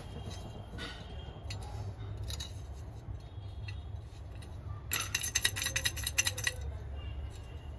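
Metal objects clinking and rattling in a quick run of sharp clicks lasting about a second and a half, a little past the middle, over a steady low hum and a few faint taps.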